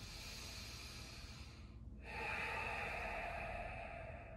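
A man breathing long and deep while holding a yoga bridge pose: one long breath for about two seconds, then a louder, longer one from about two seconds in.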